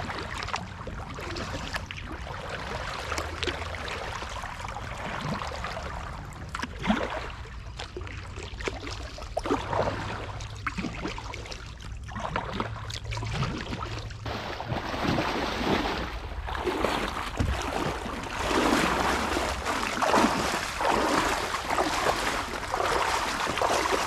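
Small paddle boat being paddled up a shallow brook: irregular paddle strokes and water splashing, getting louder in the last third.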